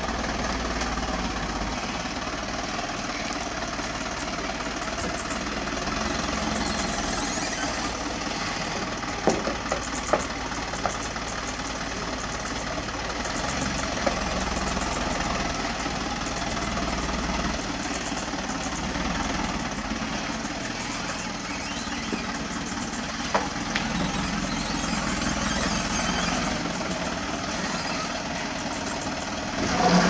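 Dump truck's diesel engine running steadily at low revs while the truck manoeuvres, with a few sharp knocks about a third of the way in.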